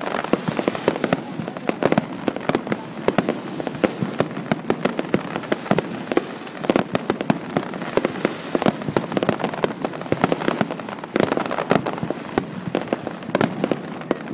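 Aerial fireworks display: many shells bursting in quick succession, a dense, unbroken run of sharp bangs and crackles, picked up by a phone's microphone.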